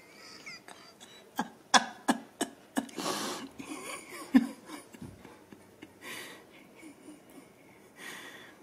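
Ragdoll kitten hissing three times in short breathy hisses, the first and strongest about three seconds in. A run of sharp taps comes before it, and there is one loud knock just after.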